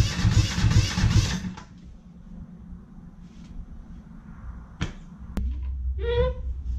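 Two-cylinder Perkins diesel being cranked over on its starter with a rhythmic chugging that fails to catch and stops abruptly about a second and a half in; the owner suspects a pump problem. Two sharp clicks and a short vocal sound follow near the end.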